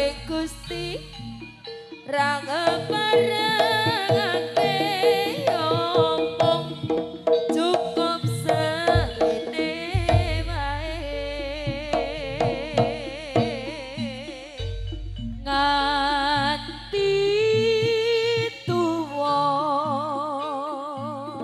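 Live jaranan music played through a sound system: drums and percussion strokes, deep sustained bass tones, and a wavering, heavily ornamented melody line.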